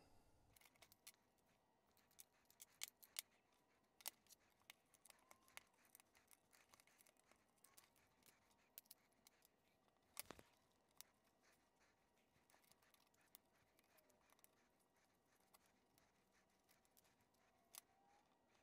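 Many faint, irregular clicks and taps of small plastic case parts and screws being handled as a HackberryPi Zero handheld is taken apart, the sharpest click about ten seconds in.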